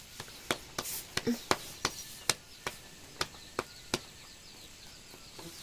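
A string of sharp, short clicks or taps, about three to four a second and unevenly spaced, stopping about four seconds in.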